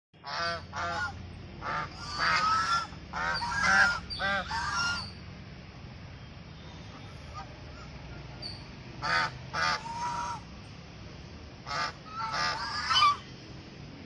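White domestic geese honking: bursts of repeated honks through the first five seconds, then a quieter pause, then two more short bursts of honks near the end.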